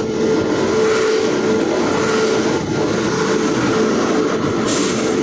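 Train locomotive running steadily, heard inside the cab: a continuous loud rumble of the engine and wheels with a steady hum.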